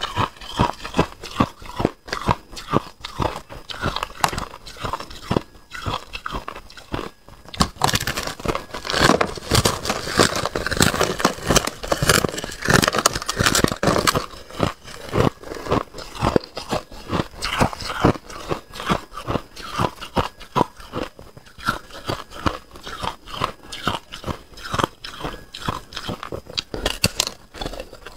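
Thin sheet ice being bitten off and chewed, a quick run of sharp cracks and crunches several times a second, thickest in the middle stretch.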